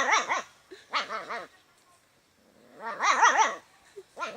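A dog's excited, wavering vocalizations in three short bursts, at the start, about a second in and about three seconds in, each with its pitch wobbling rapidly up and down.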